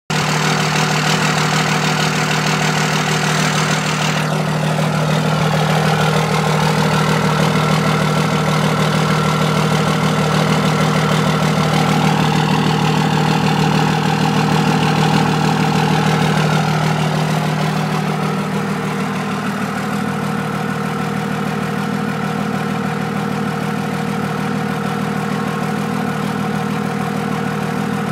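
Diesel pickup engine fitted with 6x.013 cylindrical SAC injectors idling steadily on a cold start at 19° without its block heater plugged in. A hiss over the engine stops about four seconds in.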